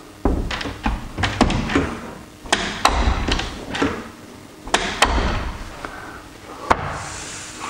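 A paper-based interior door being worked by its lever handle and shut against its frame several times: the latch and handle click sharply, and the leaf knocks into the frame with a few heavier thuds. The door closes again after its hinge was re-fixed and screwed in tighter.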